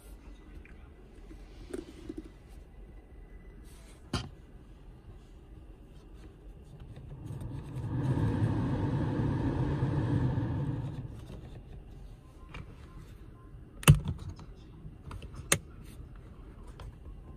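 Rear air-conditioning fan of a 2021 Hyundai Santa Fe blowing when its knob is turned up, a steady rush of air that swells for about four seconds and then drops away. A few sharp clicks from the rear controls follow near the end, the loudest about two-thirds of the way through.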